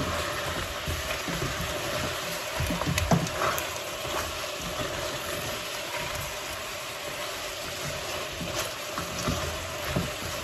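Chicken wings sizzling in oyster sauce in a stainless steel pot while a plastic spatula stirs them, scraping and knocking against the pot now and then, with a flurry of stirring about three seconds in.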